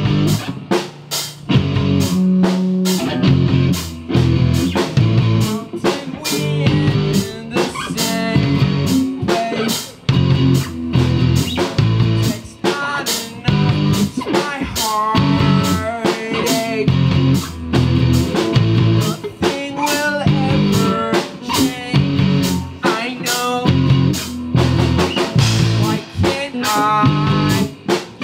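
Rock band playing live on electric guitars, bass guitar and drum kit, with a steady drum beat under a melodic lead guitar line.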